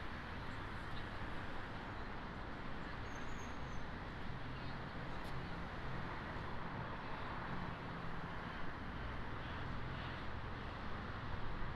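Steady outdoor city noise: a continuous hiss with a low traffic hum beneath it.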